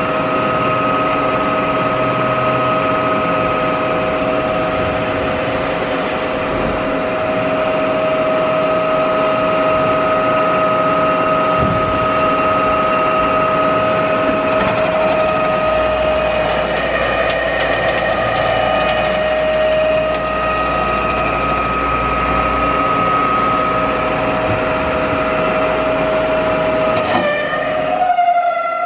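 Takisawa TC-2 CNC lathe running: a steady high whine with a second, higher tone above it. A hiss rises over it for several seconds midway, and near the end there is a sharp click and a brief break in the sound.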